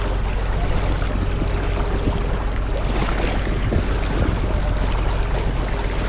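Beach ambience: wind rumbling steadily on the microphone over the wash of sea surf.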